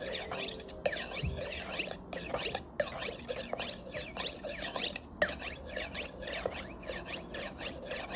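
A steel knife blade scraped against a sharpener in quick repeated strokes, each stroke giving a squeaky, high-pitched scrape.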